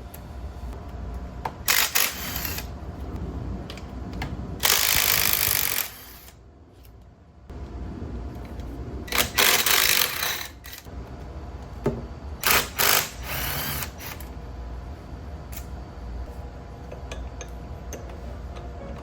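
Workshop tool running in four short bursts of about a second each, loud and hissing across the whole range, over a steady low hum.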